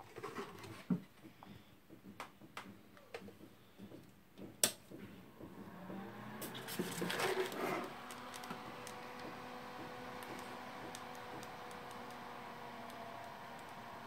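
Light clicks and handling, with one sharp click a few seconds in, then an EK-Vardar F4-140ER 140 mm PC fan spins up about six seconds in and runs at full speed with no PWM control. Its steady rush of air carries a few faint hum tones.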